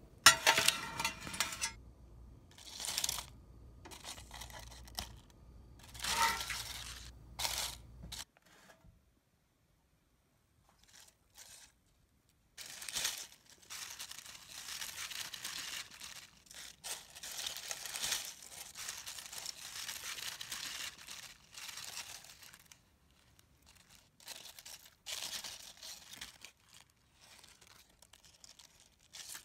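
Crisp baked kale chips crackling and crinkling as fingers handle and press the brittle leaves. Short bursts come first, then a longer run of steady crackling in the middle, then scattered bursts again.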